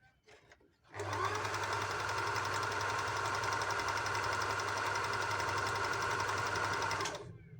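Wertheim electric sewing machine starting about a second in, stitching at a steady speed for about six seconds, then stopping suddenly. A few faint clicks come before it starts.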